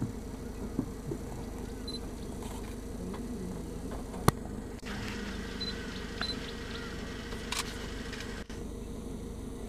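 Steady low hum of the tour vehicle's idling engine, with one sharp click about four seconds in and a few fainter camera-handling clicks.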